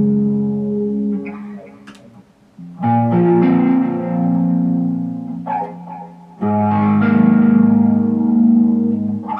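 Ambient guitar chords played through heavy delay, reverb and a phaser. A new chord comes in twice, about 3 and 6.5 seconds in, and each rings on and slowly fades.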